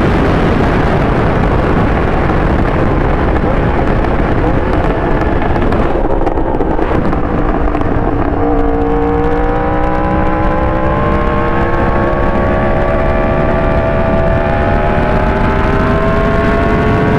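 Yamaha R1 inline-four motorcycle engine under a strong rush of wind noise. Its pitch sags through the first half, then climbs slowly and steadily from about halfway as the bike accelerates.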